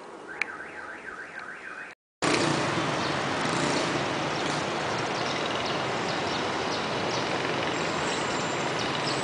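Busy city street traffic, mostly motorbikes, heard as a steady, dense wash of engine and road noise. In the first two seconds, before it cuts in, there is a quick run of high warbling chirps.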